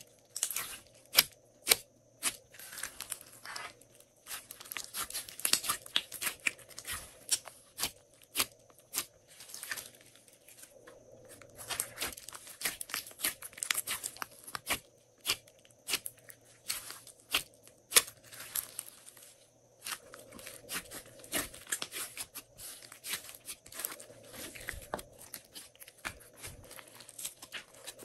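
Glossy slime being squished, pressed and stretched by hand: runs of sticky clicks, pops and crackles as it is squeezed and pulled apart, with a few sharper pops and short lulls between handfuls.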